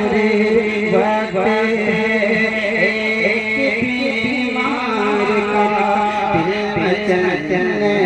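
A man singing a naat, a devotional Urdu song, into a microphone through a sound system, in a continuous melodic line with long gliding notes.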